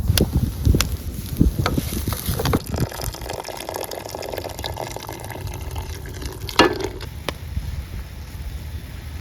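Cooking utensils handled: a run of knocks and clicks, a stretch of stirring or scraping, then one loud clatter about six and a half seconds in. A steady low rumble of wind on the microphone runs underneath.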